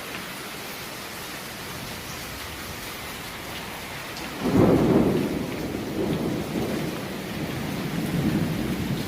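Steady rain, then about halfway through a sudden loud thunderclap that rolls on as a low rumble to the end.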